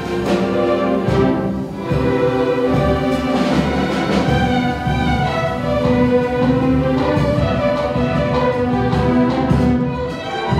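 String orchestra of violins, violas, cellos and double basses playing a piece live, with many sustained notes sounding together.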